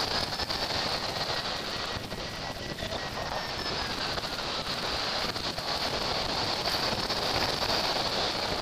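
Rushing airflow over a hang glider in flight, heard as wind noise on the glider-mounted camera's microphone: a steady rush with constant buffeting.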